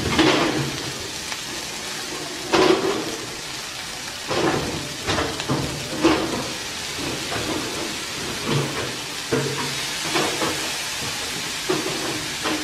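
Fried rice and egg sizzling in a hot nonstick frying pan, a steady hiss, with short louder bursts about every second or two.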